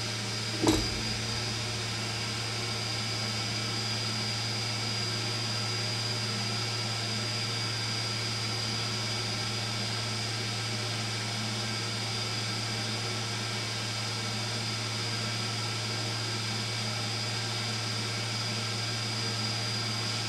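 Steady hum of a small electric fan or motor running evenly, with a low drone and a thin high whine. A single knock comes just under a second in.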